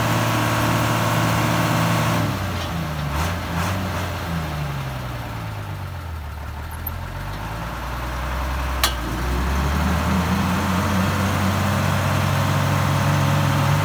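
Tata 1612 4x4 truck's diesel engine running at a steady idle. About two seconds in its speed wavers and sags for several seconds, then climbs back to a steady idle. A single sharp click comes about nine seconds in.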